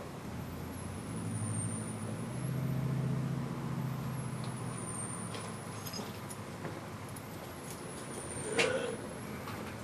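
A motor vehicle's engine running nearby, swelling over a couple of seconds and then fading. A sharp knock comes near the end.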